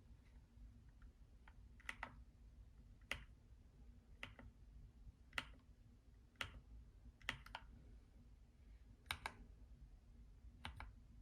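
Keys on a Keychron K2 mechanical keyboard being pressed one at a time, about one click a second, a few coming as quick doubles.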